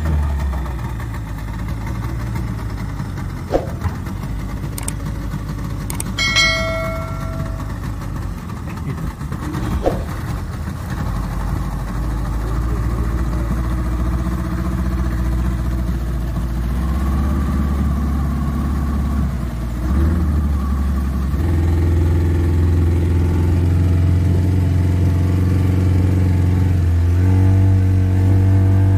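Small boat's outboard motor running steadily, with water and wind rush; its pitch steps up twice in the second half as the throttle opens. A few clicks and a brief high tone come about six seconds in.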